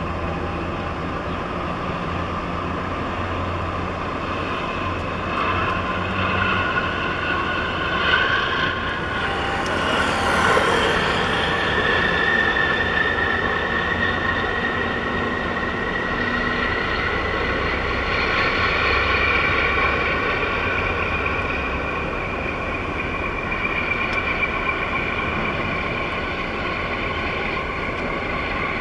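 Tugboat diesel engines running steadily, a low drone with a whine above it that slowly shifts in pitch, and a brief rush of noise about ten seconds in.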